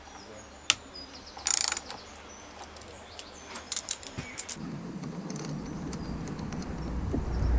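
Socket ratchet clicking as the bolts holding the carburettor to the inlet manifold of a Tohatsu 3.5 hp four-stroke outboard are loosened. There are scattered single clicks and a quick run of clicks about one and a half seconds in. From about halfway through, a low outdoor rumble takes over and grows louder near the end.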